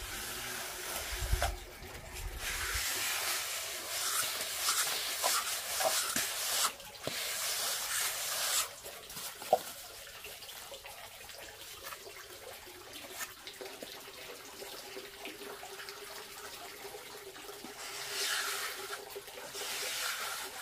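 Sponge float rubbing over wet cement render: a scratchy, water-like swishing of repeated strokes, louder in the first half and again near the end, quieter in between.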